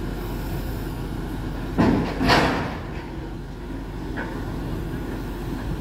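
Grapple truck's diesel engine running steadily while its loader works, with a loud crash about two seconds in as tree limbs drop into the steel dump body, and a smaller knock a couple of seconds later.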